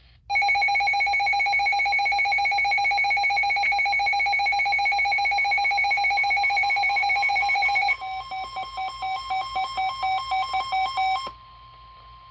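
Emergency weather alert tone ahead of a warning broadcast. A steady, harsh electronic tone lasts about eight seconds, then breaks into fast pulsing beeps for about three seconds, and a fainter steady tone runs on briefly after.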